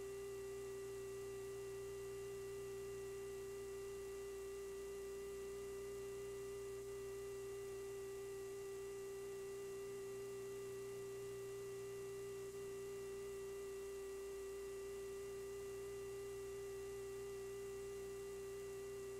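Steady electrical hum on an aircraft intercom recording: one unchanging tone near 400 Hz with fainter higher tones, the whine of the aircraft's AC power system leaking into the audio. No sound of the missile launch is heard.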